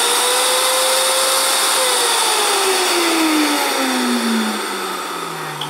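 Vitamix Professional Series 200 blender motor running on high speed with no container fitted. It whines at a steady pitch, then winds down with a falling whine from about two seconds in.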